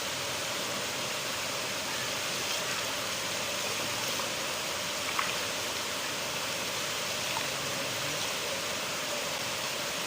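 River water flowing and rushing steadily, with a few faint splashes or drips over it.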